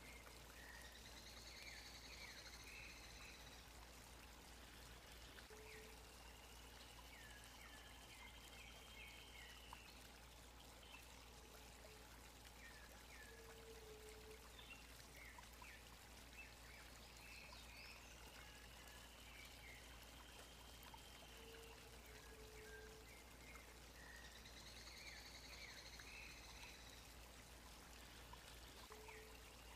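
Faint water from a stream running steadily, with high bird whistles and short chirps that come back every several seconds.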